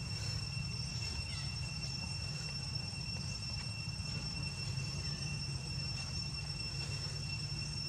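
Steady high-pitched insect drone, typical of crickets, over a low steady hum, with a few faint short chirps.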